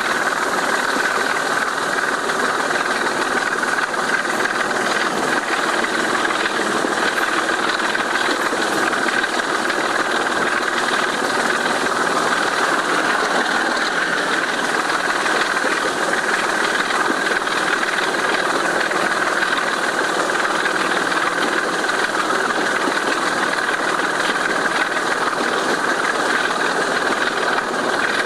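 Diesel locomotive D5217's Sulzer 6LDA28 six-cylinder engine working flat out, a loud, steady thrash that does not change.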